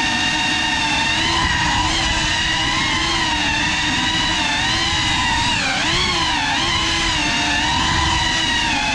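Geprc Cinelog 35 cinewhoop's brushless motors and ducted propellers whining under throttle, holding a steady pitch and then dipping and rising with quick throttle changes about six seconds in.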